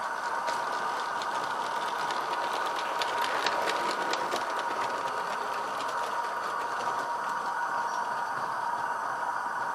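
Small model locomotive running on track: rapid rattling clicks, thickest in the first half, over a steady two-note hum.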